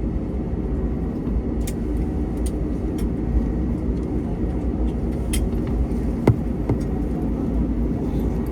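Steady low cabin rumble inside an Airbus A321neo taxiing after landing, with engine and air-conditioning noise. A few sharp clicks are heard, the loudest about six seconds in.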